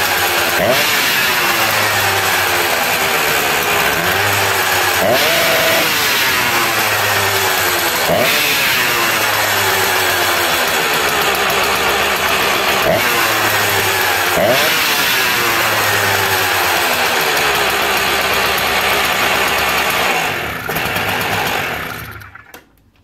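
Small single-cylinder engine of a Rotop PA 90 running, its pitch rising and falling several times as the throttle is worked. Near the end it is shut off and runs down to a stop within about two seconds.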